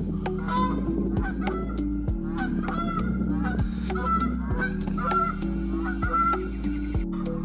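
Background music with a steady beat and a stepping bass line, with repeated short honking calls sounding over it about twice a second.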